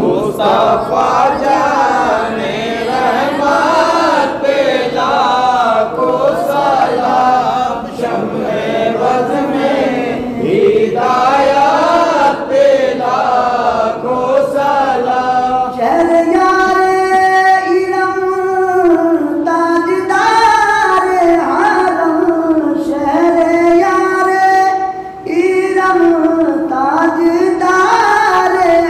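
A man's voice singing an Urdu devotional salaam in a slow, ornamented, gliding melody. About halfway through, a steady lower note holds beneath the melody.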